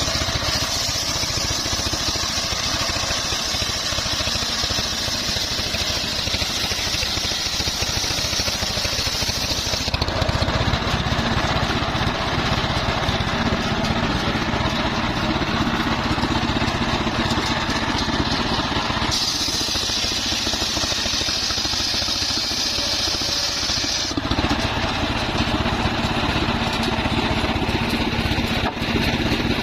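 Engine-driven homemade circular sawmill running steadily, its blade sawing through a trembesi log: a bright, hissing cut for about the first third, then only the engine running, then a second shorter cut a little past the middle, then the engine alone again.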